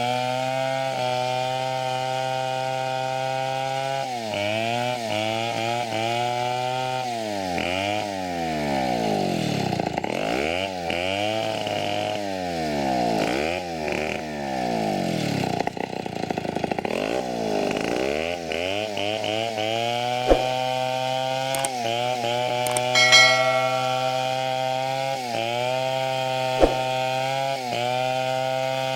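Two-stroke chainsaw running, its pitch dropping and recovering over and over for about ten seconds in the middle as it works under load cutting teak. Two sharp clicks and a brief high squeal come in the second half.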